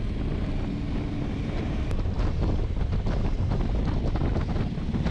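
Wind buffeting the microphone on a KTM 1290 Super Adventure S motorcycle at about 40 mph, over the steady low rumble of its engine and tyres.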